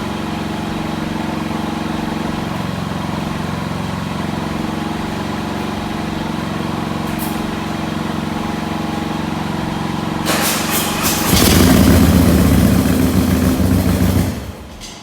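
Harley-Davidson Road Glide Special V-twin engine running steadily on freshly fitted exhaust gaskets. About ten seconds in it gets much louder for around four seconds, then drops back sharply near the end.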